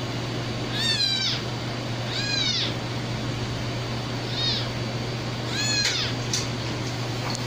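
A kitten mewing four times, short high-pitched cries that rise and fall, as it squirms while a larger cat grooms it. A steady low hum runs underneath.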